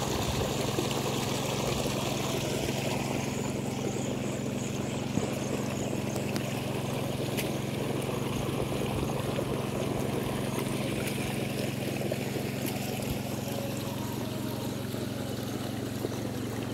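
An engine runs at a steady low hum over the sound of water running and trickling.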